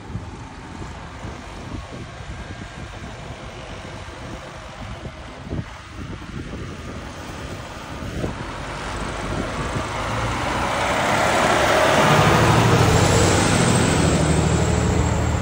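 Fire engine's diesel engine pulling away and driving past close by. It grows steadily louder as it accelerates toward the camera, with a low engine drone strongest in the last few seconds as the truck passes alongside.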